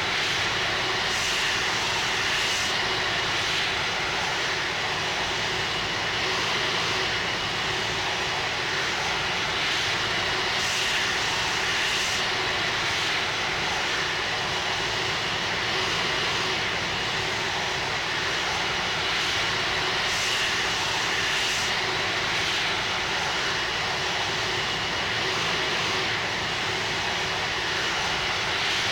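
Airbus A330-300 jet engines running steadily: an even rushing noise with a faint high steady whine.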